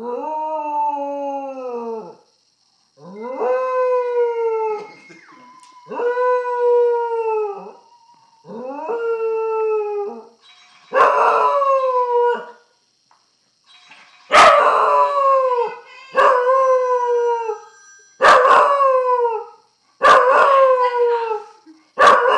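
A dog howling over and over, about ten long howls of a second or two each, every one rising briefly and then sliding down in pitch, with short pauses between them; the howls grow louder about halfway through.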